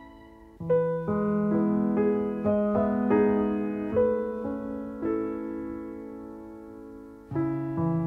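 Grand piano playing. A chord dies away, then about half a second in new notes are struck one after another, each ringing and fading, and a fresh chord enters near the end.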